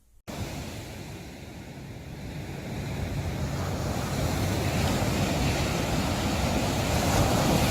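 Steady rushing noise, like surf, that cuts in suddenly just after the start and swells louder over the next few seconds.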